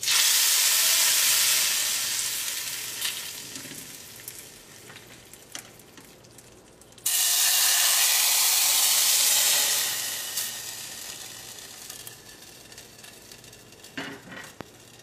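Hot coconut-oil tempering of mustard seeds, dried red chillies and curry leaves poured into sambar: a loud sizzle that starts suddenly and dies away over several seconds, then a second loud sizzle about seven seconds in as more is poured. A spoon clinks against the pan near the end as it is stirred in.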